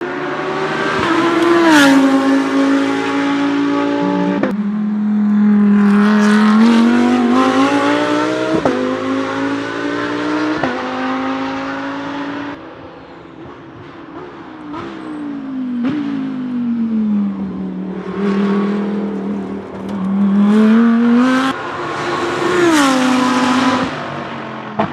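Audi R8 LMS GT3 EVO race car's naturally aspirated V10 accelerating hard through the gears. The engine pitch climbs, then drops sharply with a crack at each upshift. About halfway through it backs off and goes quieter, the pitch sliding down as it slows, then it revs up through the gears again.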